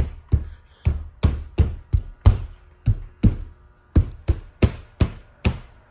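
Repeated sharp knocks on a car's sheet-metal roof panel, about three a second and a little uneven, each with a low thump and a short ring, as sound deadener is pressed and tapped down onto the metal.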